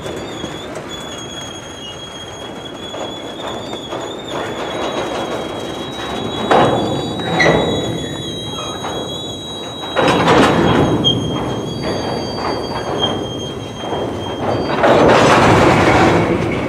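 Freight train of covered hopper cars rolling slowly past while braking to a stop, the steel wheels giving a high, steady squeal over the rumble of the cars. The rumble swells three times, about six, ten and fifteen seconds in.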